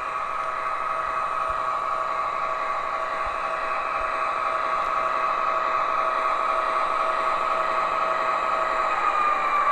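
O scale model diesel locomotive, an MTH ES44AC, running on the layout track: a steady whirring hum that grows slowly louder as it approaches. Near the end the main pitch slides down a little.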